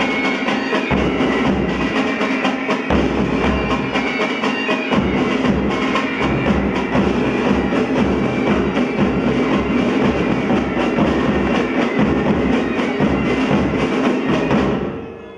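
Pipe band playing: bagpipes sounding a melody over their steady drone, with drums beating underneath. The music stops near the end.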